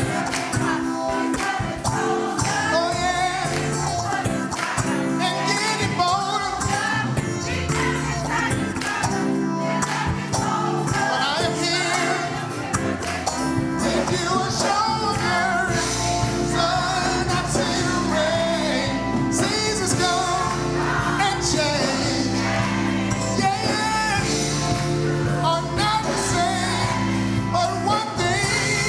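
Gospel music with singing: a vocal melody over sustained instrument chords and a steady beat.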